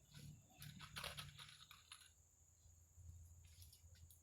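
Near silence: a few faint rustles and light clicks, over a steady high-pitched drone.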